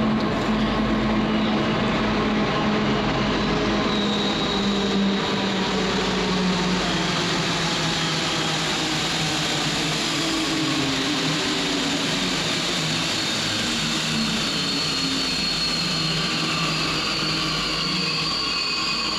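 Santiago Metro Line 2 rubber-tyred train running through the station, a steady loud running noise with motor whine tones slowly shifting in pitch.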